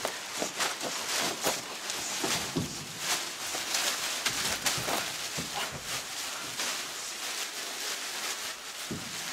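Clear plastic sheeting crinkling and rustling steadily as it is handled and pulled, dense with small crackles, with a few soft knocks.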